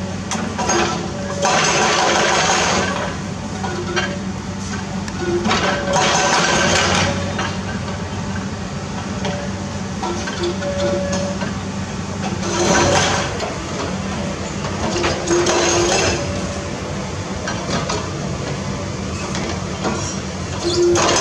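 Komatsu PC210 excavator's diesel engine running steadily while its demolition crusher works concrete rubble, with several bursts of crunching and clattering concrete and debris.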